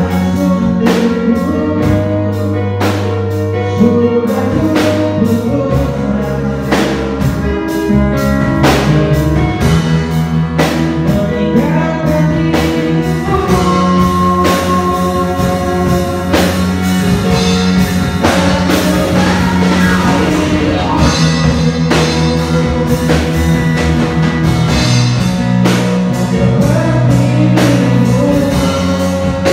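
Live band playing a pop ballad: a male vocalist singing into a microphone over a drum kit keeping a steady beat, electric bass guitar and electronic keyboard.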